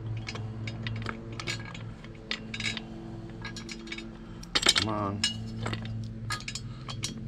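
Metal clinking, tapping and scraping as the cart's metal pull handle is worked into its mounting bracket, with a louder squeak falling in pitch about four and a half seconds in. A faint steady low hum runs underneath.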